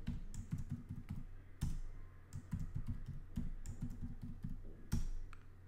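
Typing on a computer keyboard: a run of irregular key strikes entering a password, with one louder strike about five seconds in.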